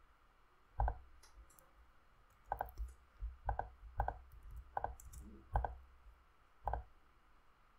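Computer mouse clicking, about eight short separate clicks at an uneven pace over a faint low hum.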